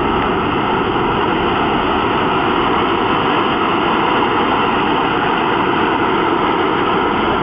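The twin miniature turbine engines of a radio-controlled A-10 Thunderbolt model jet running on the ground before takeoff. They make a loud, steady rushing noise.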